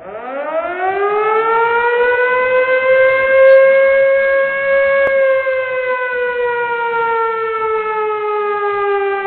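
A siren sounding one long wail. It rises in pitch over the first two seconds, holds, then slowly sinks through the second half.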